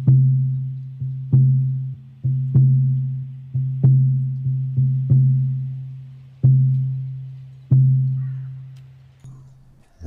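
A 14-inch buffalo-skin shamanic frame drum struck with a soft beater in a loose, uneven beat, each stroke ringing on in a low, steady boom. The head is quite tight, so the drum is pitched slightly higher than it would be with a more relaxed skin. The last stroke comes about three-quarters of the way through and rings out.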